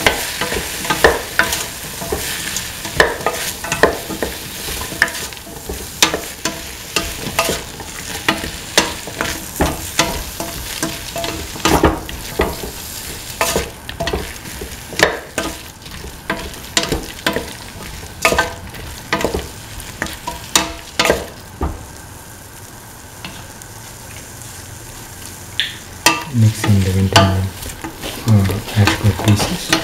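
A spatula scraping and knocking against a steel pot while okra, winter melon, tomato and red chillies sauté in oil, over a steady sizzle. The strokes come about once a second, pause for a few seconds past the two-thirds mark, and near the end two short low drones sound.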